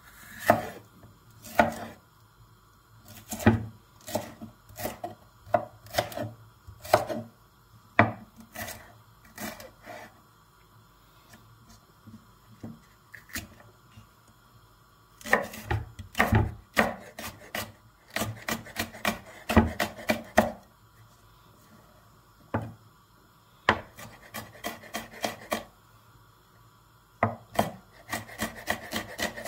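Chef's knife slicing and chopping a pale pepper on a wooden cutting board: the blade knocks on the board in irregular runs of strokes with short pauses. Faster runs of rapid chopping come in the second half.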